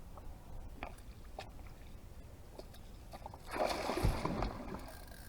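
Water sloshing against a small boat's hull in a short burst about three and a half seconds in, with two dull thumps, over a steady low rumble and a few faint clicks.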